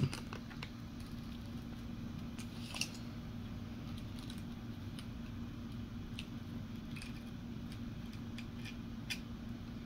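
Faint scattered clicks and scrapes of a hobby knife cutting through a thin balsa strip, over a steady low hum.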